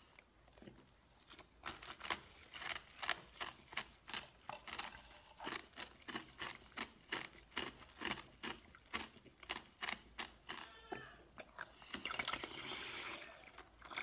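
Wet mouth sounds of soft jelly being sucked and eaten: a quick run of short, sharp smacks about three a second, then a longer slurp near the end.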